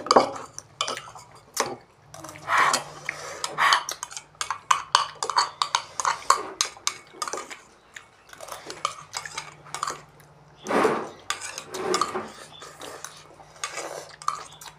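Metal spoons and forks clinking and scraping against ceramic bowls as two people eat instant noodles, with a few slurps of noodles among the clinks.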